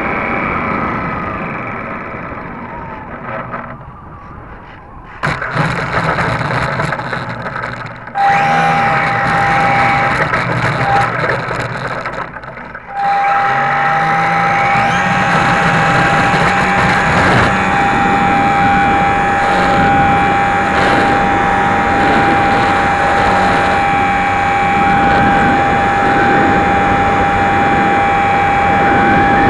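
HobbyZone Super Cub RC plane's electric motor and propeller heard from an onboard camera in flight, with air rushing past. The motor eases back and fades over the first few seconds, then throttles up about five seconds in. A high steady whine comes in about eight seconds in, drops out briefly, and returns at about thirteen seconds, after which it runs steadily.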